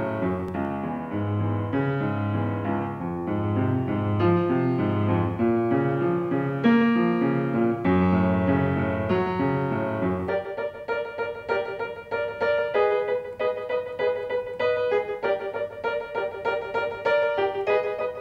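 Piano music: a slow passage with low bass notes under the melody. The bass drops out about ten seconds in, leaving quicker repeated notes higher up.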